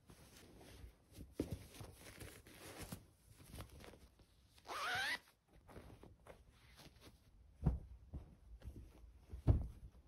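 Fabric rustling as a memory foam pillow is worked into its cover, with a zipper pulled shut in one rising stroke about five seconds in. Two soft thumps follow near the end.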